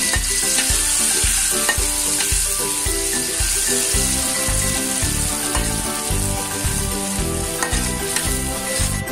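Chili, garlic and shallot spice paste sizzling steadily as it fries in hot oil in a wok, stirred with a metal spatula that clicks against the pan now and then. This is the paste being sautéed until fragrant and cooked.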